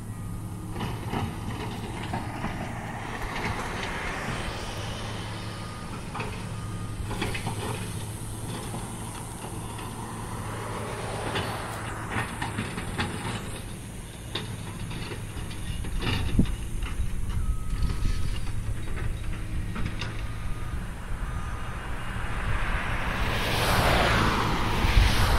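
Road traffic: vehicles passing on a multi-lane road over a steady low engine hum, one passing close and loud near the end.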